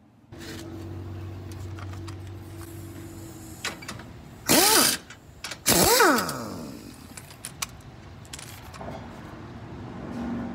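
A power tool's motor whirs up and back down in two short bursts about a second apart, driving a socket on the rear shock absorber's lower mounting bolt while a wrench holds the nut. A steady low hum comes before them.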